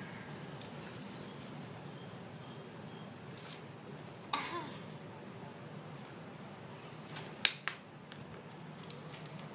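Faint rubbing and scratching of a marker drawing on paper, with a few sharp clicks, two of them close together about seven and a half seconds in.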